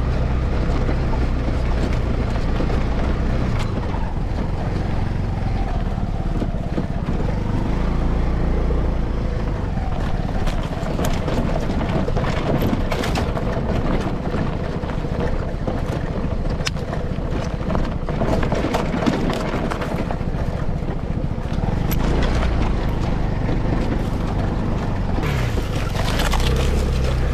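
Voge SR250GT scooter being ridden, its engine running steadily with wind and road noise and occasional small knocks from the rough surface. No rattle comes from the front mudguard, whose mounting bolts have been padded with soft rubber pads.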